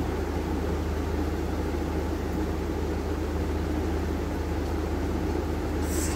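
Steady low hum under an even whooshing air noise from a running household appliance, with a brief high hiss near the end.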